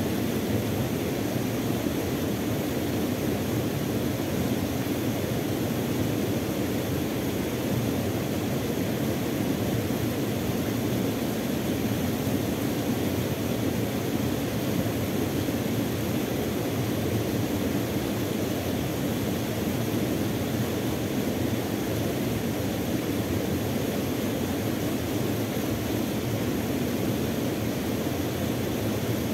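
Steady rushing of a small waterfall and rapids pouring into a river pool, an even, unbroken noise.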